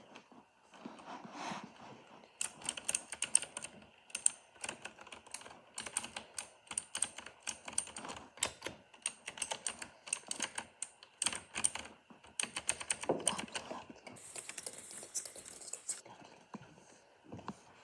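Typing on a MageGee 75% mechanical keyboard: quick, irregular key clicks and clacks in runs. A short hissing rustle comes about two-thirds of the way through.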